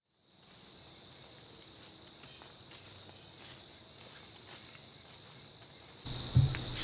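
Insects chirring in the woods, a steady high-pitched drone with faint scattered ticks. About six seconds in it all gets louder and a low thump follows.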